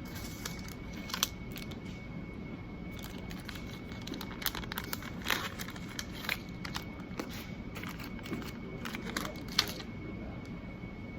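Scattered crinkling and sharp clicks, like something being handled, over a steady room hum with a faint steady high-pitched tone.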